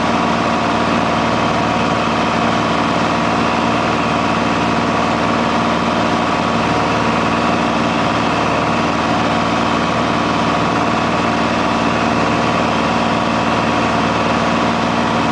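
Cessna 182's single piston engine and propeller running steadily in flight, heard from inside the cockpit as an even drone made up of several steady tones.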